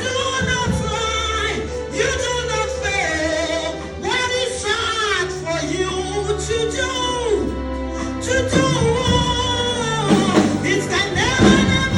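Live gospel music: a solo voice sings long, gliding runs over a band's backing with held bass notes.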